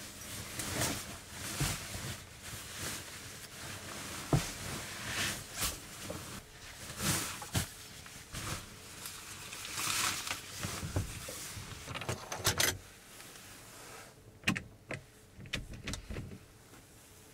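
Rustling and swishing of a nylon sleeping bag and bedding cover being handled and spread over a bed, with scattered knocks. A few sharp clicks near the end.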